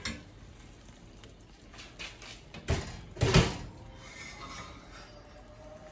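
A metal roasting tin of pork being handled, clattering with two loud knocks close together about three seconds in.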